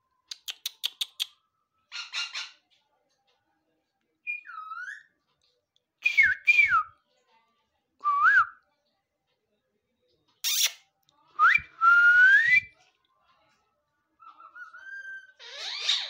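Indian ringneck parakeets calling: a quick run of about half a dozen clicks, then short whistled calls that swoop up and down in pitch, one at a time with pauses between.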